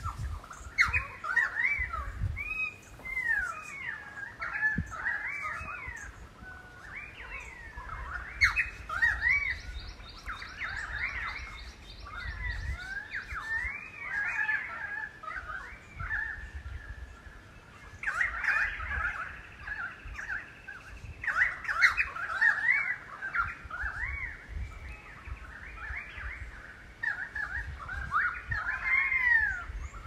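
Dawn chorus of many birds calling at once, with overlapping whistled notes that slide up and down. A quick, even run of high pips comes in for a few seconds about nine seconds in.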